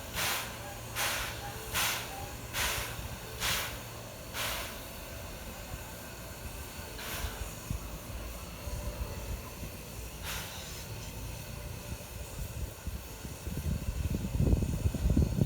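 Steam locomotive working slowly during shunting, its exhaust chuffing a little more than once a second and slowing, the chuffs stopping about four seconds in. Two single steam puffs follow, then a louder low rumble builds near the end.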